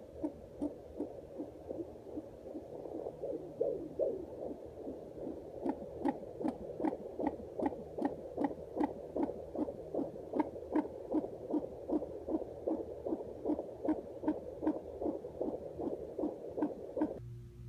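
Unborn baby's heartbeat at 35 weeks of pregnancy, a fast, even train of whooshing pulses at about two and a half beats a second, cutting off near the end.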